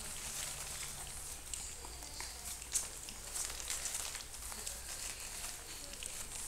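Puppies scuffling and play-wrestling on a quilted pad: faint rustling with scattered light ticks and scratches, over a low steady hum.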